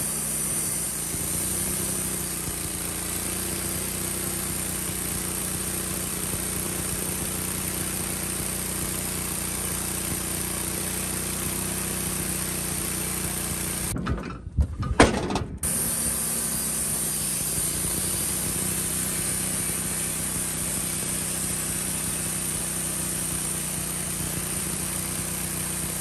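Wood-Mizer LX150 portable band sawmill running steadily at speed, its band blade sawing lengthwise through a maple log. About fourteen seconds in the sound drops out for a second and a half, with a sharp knock in the gap, then the same steady running resumes.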